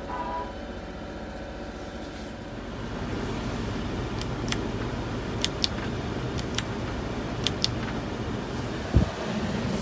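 1991 Mitsubishi Minicab kei truck's small three-cylinder engine idling steadily, heard from inside the cab. From about four seconds in, a lever beside the seat is worked with several sharp clicks, mostly in quick pairs, and a single clunk near the end.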